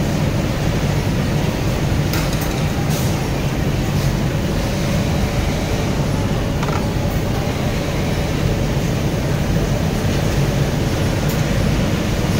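Steady low machinery rumble and hum, with a few light clicks scattered through it.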